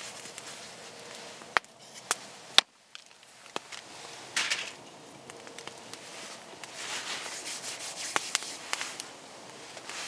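Wood campfire crackling with scattered sharp pops, the loudest two coming early, while there are two spells of rustling and scraping from something being handled.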